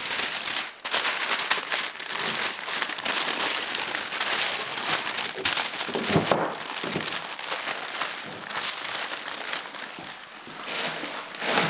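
A large paper bench-cover mat being gathered up and crumpled by hand, a continuous crinkling rustle with a soft thump about halfway through and another near the end.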